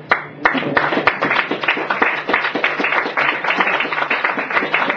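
Audience applauding, a dense clatter of many hands clapping that starts about half a second in.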